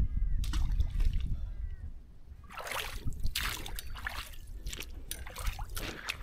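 Rubber-booted feet wading through shallow river water: a run of irregular splashing steps from about two and a half seconds in, after a low rumble.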